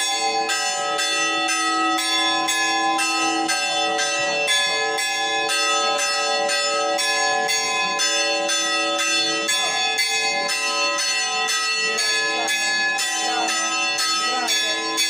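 Church bells ringing a fast festive peal, about two strikes a second, several bells of different pitch sounding together and overlapping.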